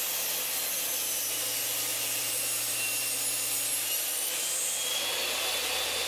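Homemade table saw built from a circular saw, with a new 8¼-inch finishing blade, running steadily while ripping a piece of cedar. The blade's cutting noise sits over the motor's hum, and the tone shifts slightly about four seconds in.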